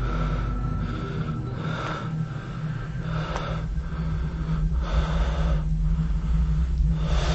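Heavy, rasping breathing: repeated breaths about a second apart over a steady low drone.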